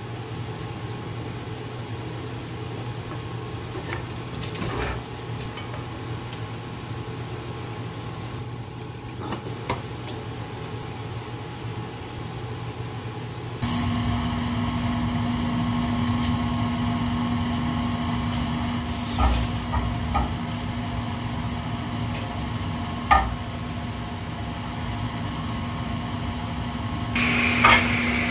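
Steady hum of a running workshop machine. It gets louder and higher-pitched about halfway through, and a few sharp knocks of wooden pieces being handled come in the second half.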